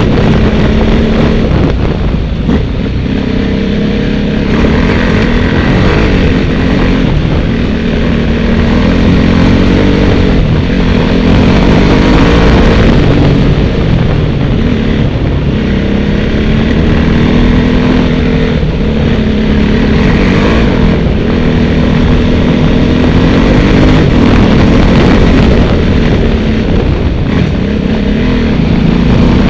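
Vehicle engine running under way, heard from on board, its pitch rising and falling again and again as it speeds up and slows, over steady road and wind noise.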